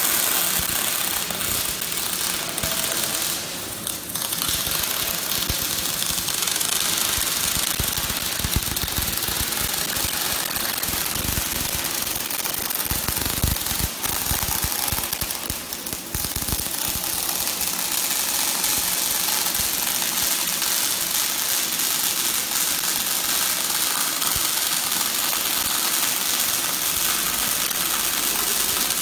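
Welding arc crackling steadily, with brief dips about four and sixteen seconds in.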